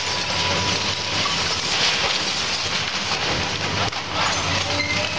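Wood-framed building section collapsing as an excavator tears into it: a continuous crashing and rumbling of timber and debris coming down, over the steady hum of the excavator's diesel engine.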